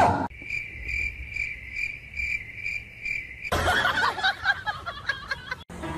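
Cricket chirping: an even chirp repeating about two to three times a second for about three seconds, starting and stopping abruptly. A short loud noise comes just before it, and a busier jumble of louder sounds follows from about three and a half seconds in.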